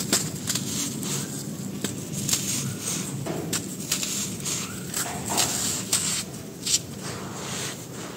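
Hands crushing dry sand-cement lumps over a powdery pile: crisp crunches and gritty rustling as crumbs and grains trickle down, with a sharper crunch about two-thirds of the way through.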